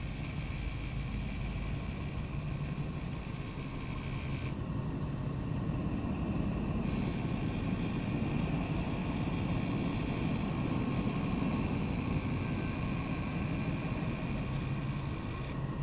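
Drive motors of a home-built Apollo sextant replica running steadily with a low whirring hum and a higher whine as the optics head turns. The whine cuts out about four seconds in and comes back about two seconds later, then drops out briefly again near the end.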